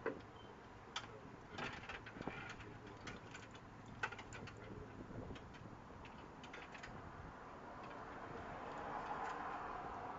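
Scattered light clicks and taps of parts being handled and fitted, several in the first half, with a soft hiss that swells near the end.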